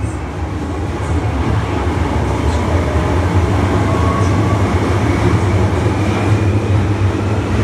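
Running noise inside a Hankyu 1300 series commuter car in a tunnel: a heavy low rumble from the wheels and running gear, with the faint whine of the Toyo Denki IGBT-VVVF traction equipment rising slowly in pitch. The whole sound grows louder as the train picks up speed.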